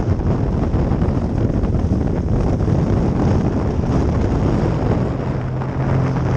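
Wind buffeting an action camera's microphone on a sailing catamaran, with water rushing and splashing along the hull as the boat sails. A low steady hum comes in about five seconds in.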